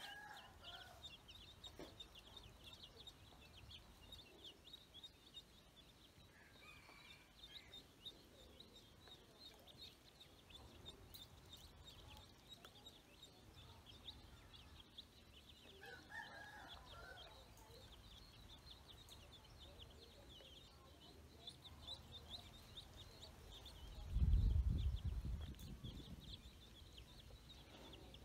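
Young ducklings and chicks peeping: a constant stream of rapid, high peeps, with a few lower calls near the start, about six seconds in and about sixteen seconds in. A brief low rumble about twenty-four seconds in is the loudest moment.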